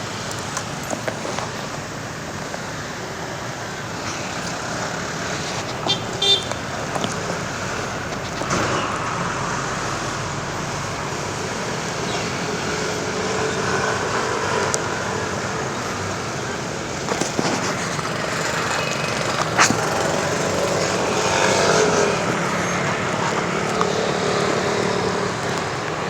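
Road traffic noise, steady throughout, with a short stuttering horn toot about six seconds in.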